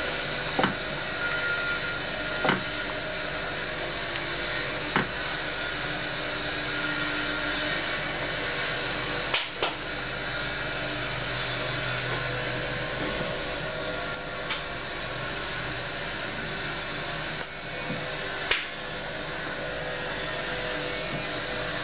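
Spatula stirring thick banana jam as it simmers in a nonstick pan, knocking sharply against the pan every couple of seconds over a steady rushing noise.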